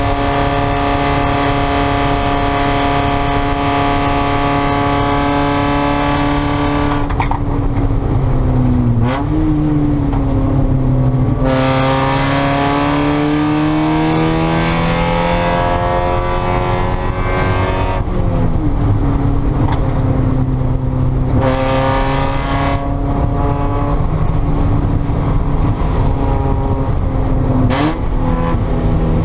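Spec Miata's four-cylinder engine pulling hard at steady high revs, then lifting off for corners with quick throttle-blip downshifts three times and accelerating again in between.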